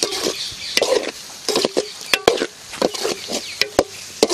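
Metal ladle stirring and scraping goat liver pieces frying in masala in a large metal pan, in repeated short strokes with sharp clinks as the ladle knocks against the pan.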